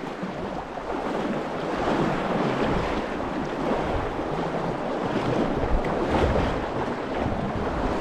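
Shallow river water rushing over rocks through a riffle, heard right at water level: a steady rush that builds a little about a second in, with a low rumble underneath.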